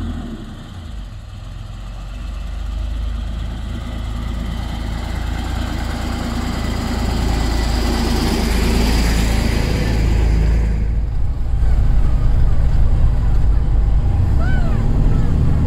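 Magirus Deutz 170D11 four-wheel-drive truck's air-cooled Deutz diesel engine running as the truck drives up a gravel track and passes close by, growing steadily louder, with its tyres on the gravel. About ten and a half seconds in the sound switches to the engine's steady drone heard from inside the cab.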